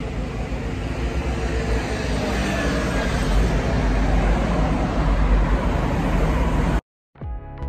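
Road traffic noise from a motor vehicle's engine and tyres, growing slowly louder as it approaches. It cuts off suddenly near the end, and soft music starts.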